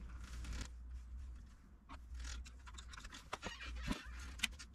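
Faint scraping and a few short clicks of deadbolt parts being handled and fitted into the door, with a short run of sharp ticks near the end.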